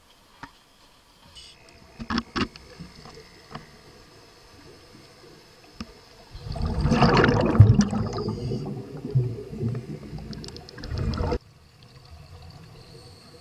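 A few sharp knocks, then a few seconds of loud water rushing and bubbling, heard with the camera underwater during a scuba dive, which cuts off suddenly near the end.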